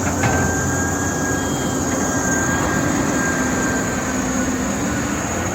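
Caterpillar 320D excavator running, a steady loud engine and machine noise with a thin high whine over it for the first few seconds.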